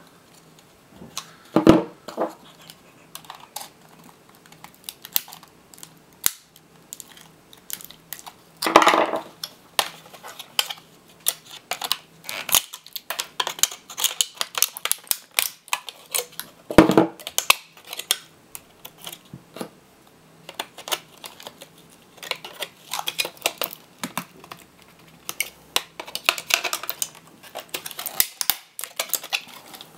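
Plastic casing of a laptop battery pack being pried and cut apart with cutters: a run of clicks, creaks and scrapes, with three louder cracks of the plastic about two, nine and seventeen seconds in.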